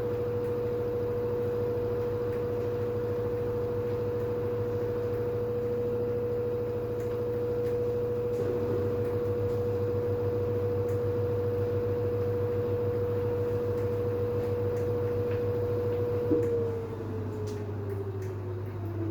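LG FH4A8TDN2 front-loading washing machine spinning at 1400 rpm: a steady high motor whine over a low hum. About 16 seconds in there is a click, and the whine starts falling in pitch as the drum begins to slow down at the end of the spin.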